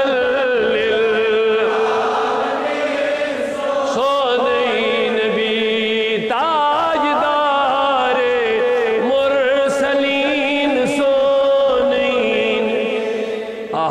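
A man's voice chanting a naat, drawing out long held notes with wavering ornaments.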